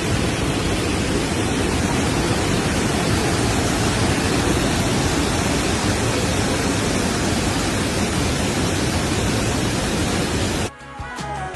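Waterfall: a steady, dense rush of falling water that cuts off abruptly near the end.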